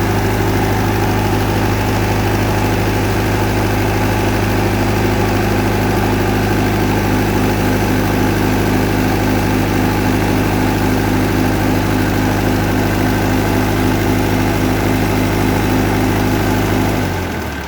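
Tsuzumi TD30 30 kVA open-frame diesel generator, with a water-cooled four-cylinder engine, running at a steady speed. Near the end its hum drops away suddenly as the engine is shut down.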